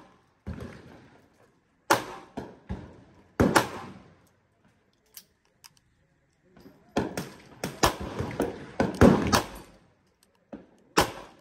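Handgun shots on a covered range firing line, each a sharp crack with a short echo tail, coming at uneven spacing and varying loudness. A few shots come in the first half, then a short lull, then a quick run of about eight shots.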